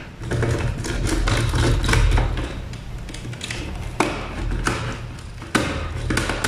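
Clicks and taps of hands handling a wire and fitting it into the terminals of contactor timer blocks on a wooden panel board, with a few sharper clicks about four and five and a half seconds in, over a low steady hum.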